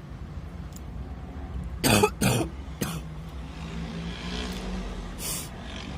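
A person coughing: three quick, hard coughs about two seconds in, part of a coughing fit brought on by a dust allergy while smoking. A short breathy hiss follows near the end.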